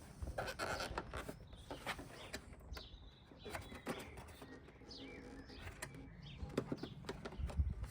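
Small birds chirping in short curving calls, with scattered light clicks and knocks as a motorcycle's plastic cowling panel and its push-fit fasteners are handled.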